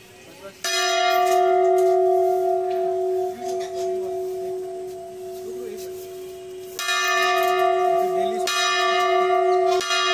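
Large hanging brass temple bell rung by pulling the chain on its clapper. One strike about half a second in rings on for several seconds with a steady tone, then three more strikes come in quick succession near the end, each ringing out.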